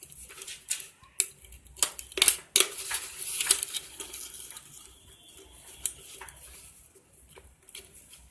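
Clicks, knocks and light clatter of a cut aluminium beer can and plastic bottle parts being handled and fitted together by hand, busiest in the first half.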